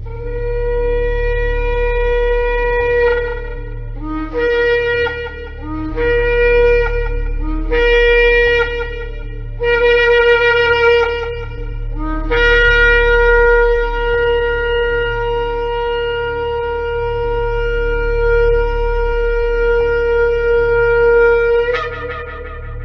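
Shofar blasts: a long note, then four shorter blasts that each slide up into the note, then one long held blast of about nine seconds that breaks sharply upward in pitch at its end.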